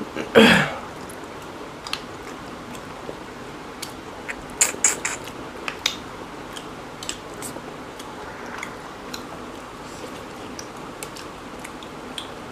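Two people eating rice and chicken curry by hand: chewing, lip smacks and fingers working the rice on plates, with a cluster of sharp clicks around the middle. About half a second in comes one loud short sound that falls in pitch.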